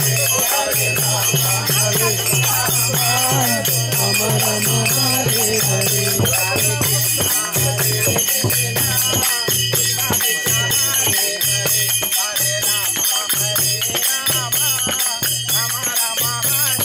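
Kirtan accompaniment: a mridanga drum beating a steady rhythm of about two strokes a second, with small hand cymbals (kartals) jingling along.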